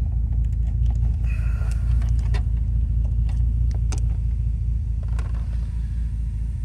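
Bentley Continental's twin-turbo W12 engine idling steadily, a low even rumble, with a few light clicks over it.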